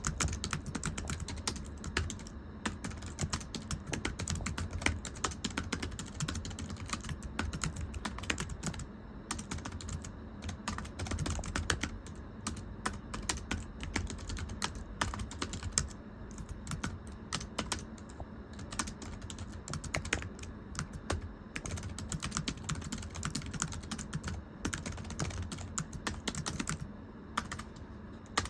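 Fast, continuous typing on a thin, low-profile computer keyboard, its keystrokes a light slapping 'pechi-pechi' patter, with a few brief pauses.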